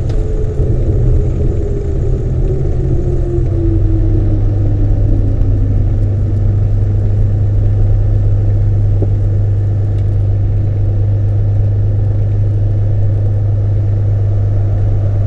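The Cirrus SR22's six-cylinder piston engine and propeller run at low power after landing, heard from inside the cabin as a steady low drone. Over the first five seconds or so a tone falls in pitch as the airplane slows.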